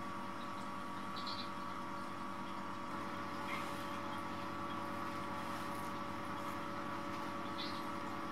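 Steady electrical or mechanical hum of room tone with several fixed tones. Three faint, short, high squeaks come now and then.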